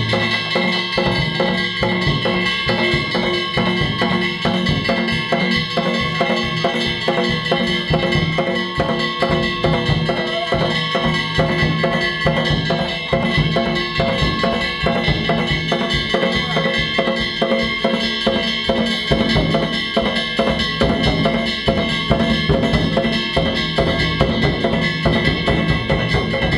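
Danjiri hayashi festival music: drums and clanging hand gongs played in a rapid, steady rhythm.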